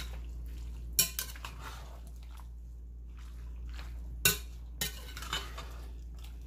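Metal spoon stirring chicken and vegetables in an enamelled Dutch oven, knocking against the pot with sharp clinks, the loudest about a second in and just past four seconds in, then a few lighter ones.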